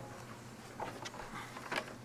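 Irregular light clicks and knocks, about five in two seconds, from handling the HID wiring harness and its plastic connectors and clips.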